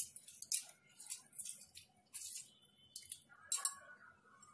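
A lemon squeezed by hand over a bowl of water: a string of short, sharp drips and squishes as the juice falls into the water.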